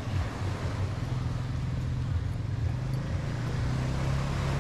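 A motor running with a steady low hum that grows slightly louder about a second in, over a wide hiss of outdoor background noise.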